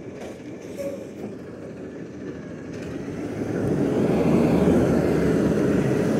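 Side-loading garbage truck driving closer, its diesel engine growing louder from about three seconds in and then running steadily.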